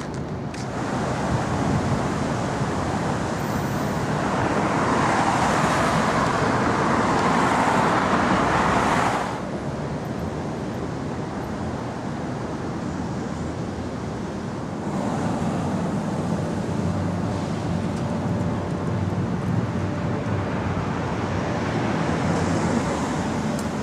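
City street noise with passing traffic, a steady rush that is louder for the first nine seconds, drops suddenly, then swells again about fifteen seconds in.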